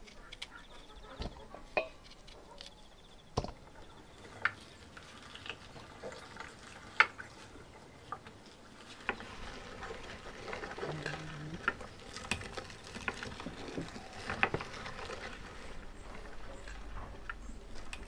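Irregular light knocks and clicks with one sharper click about seven seconds in, growing busier from about halfway through.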